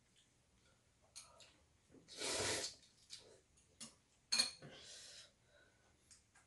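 Two people eating ramyeon with chopsticks from bowls: a breathy slurp of noodles about two seconds in, a sharp click of chopsticks on a bowl a little after four seconds followed by a second shorter slurp, and light chopstick taps between.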